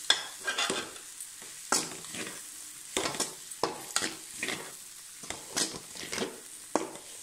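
Metal spatula stirring and scraping a dry leafy fry of greens, moong dal and coconut powder around an aluminium kadai, in irregular strokes with a couple of short pauses. A faint frying sizzle runs underneath.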